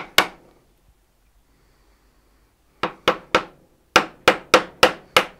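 Wood chisel being struck to chop out dovetail waste, a sharp knock with each blow. One blow comes at the start, then a quick run of three and, about a second later, a run of five, about three blows a second.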